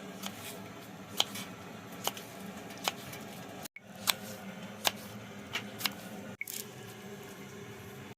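Raw chicken being cut into pieces, with sharp, short clicks of the blade roughly once a second. The sound drops out abruptly twice.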